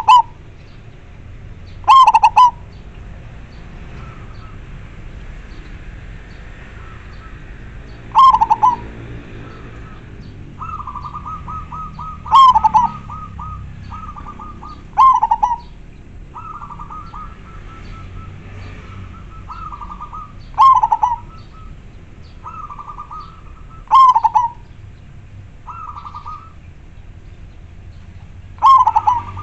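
Local zebra dove (perkutut) singing: loud half-second coos repeated every few seconds. From about ten seconds in, quieter rapid stuttering notes at a similar pitch fill the gaps between them.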